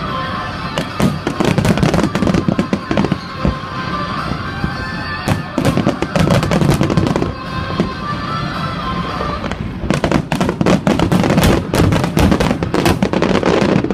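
Fireworks going off in quick succession, many bangs and crackling reports that come thickest in the last few seconds, with music playing underneath.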